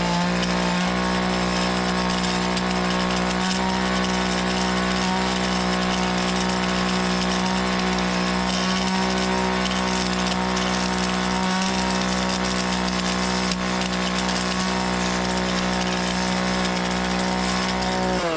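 Small gas engine of lawn-care equipment running steadily at high throttle, its pitch falling as it throttles down at the very end.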